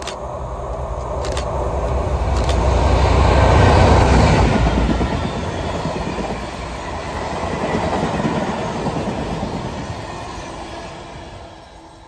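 Colas Class 56 diesel locomotive 56105, its Ruston 16-cylinder engine working hard as it accelerates past, loudest about four seconds in. A long train of tank wagons follows, rolling by on steel rails and fading away near the end.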